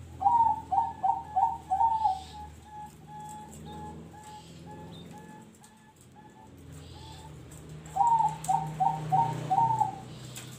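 Zebra dove (perkutut) singing its 'noklak nekung' song: two phrases of about five quick cooing notes each, one at the start and one about eight seconds in, with softer repeated short notes trailing after the first.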